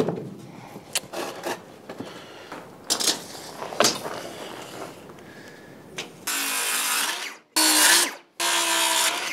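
Power drill running in three bursts of about a second each, near the end. Before them come a few seconds of scattered knocks and clicks.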